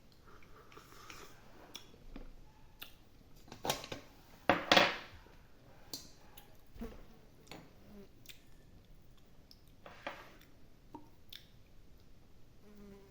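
A person chewing and biting boiled intestines, with wet mouth sounds and scattered soft clicks, and a few louder bursts between about three and a half and five seconds in.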